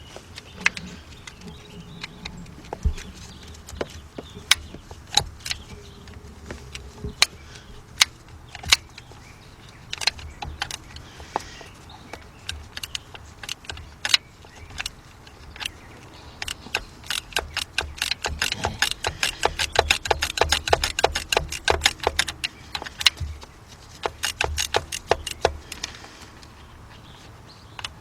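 Quarter-inch drive ratchet with a 7 mm socket clicking as small screws are worked loose: scattered single clicks at first, then a long run of rapid ratcheting clicks a little past the middle.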